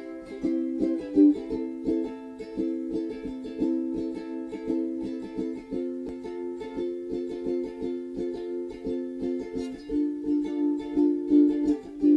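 Background music: an instrumental passage of a pop song, with strummed ukulele chords in a steady rhythm.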